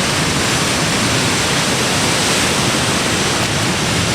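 Steady rushing roar of a powerful Mekong river waterfall, white water pouring over rocks close by.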